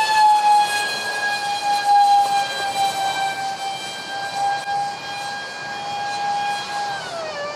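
Twin 5-blade electric ducted fans (2600kv motors on 6S) of a Freewing Su-35 RC jet in flight, a loud steady high-pitched screech with overtones whose pitch drops near the end. The screech is made worse by vibration from cheap shaft adapters and fan mounting pads that have come loose.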